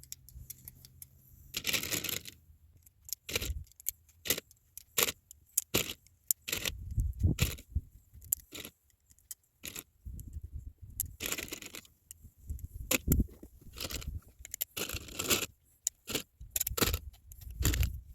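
Metal pistol magazines being handled and set down: irregular clinks, rattles and scrapes of metal on metal.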